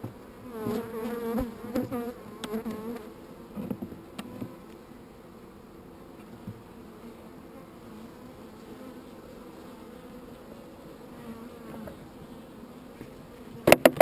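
Many honeybees buzzing from an agitated, feisty colony being moved into a new hive. In the first few seconds single bees fly close past with a louder buzz that rises and falls in pitch, then it settles into a steadier hum of many bees. Two or three sharp knocks sound near the end.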